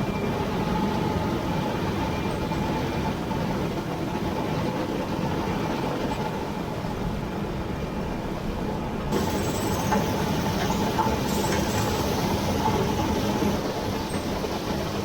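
A combine harvester running steadily through soybeans: an even mechanical drone with a faint constant whine. A higher hiss joins abruptly about nine seconds in.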